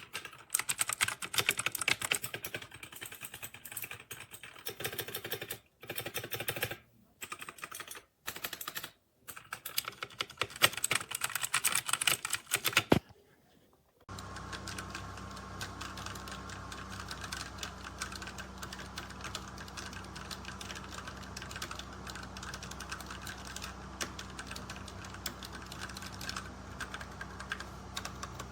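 Fast typing on a 60% mechanical gaming keyboard, a dense clatter of key clicks that comes in bursts with short pauses. About halfway through it changes to steadier, continuous typing over a constant low hum.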